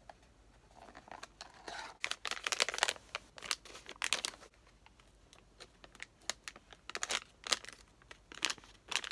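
Packaging opened by hand: a small cardboard blind box and the black blind bag inside it, crinkling and tearing in a run of quick crackles and rustles.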